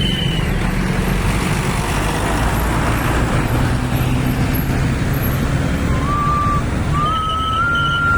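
Steady road traffic with a heavy bus engine rumbling. From about six seconds in, a telolet bus horn plays a short tune of stepped notes, rising and then falling.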